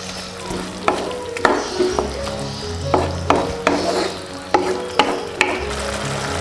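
Wooden spatula stirring green beans and carrot strips in a simmering sauce in a nonstick wok. A string of sharp knocks of the spatula against the pan sounds over a steady sizzle.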